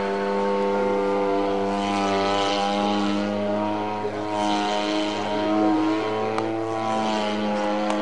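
XYZ 50cc two-stroke gasoline engine turning a Xoar 20x8 propeller on a 27% scale CAP 232 radio-controlled plane, running steadily in flight. Its pitch dips and rises slightly midway through.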